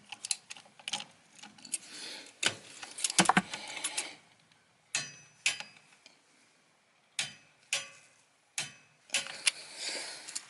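Ratchet of a torque wrench clicking as an oil drain bolt is tightened to 14 newton metres: scattered single metal clicks with a quick run of clicks about three seconds in, a few of them ringing briefly.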